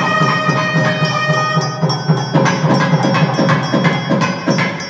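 South Indian temple music: a reed pipe holds a note over regular drum strokes. The held note fades about halfway through while the drum beats carry on.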